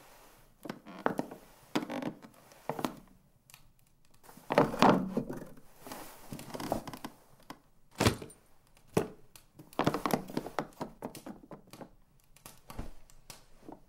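Scattered knocks, thuds and rustling, with two sharp knocks about eight and nine seconds in.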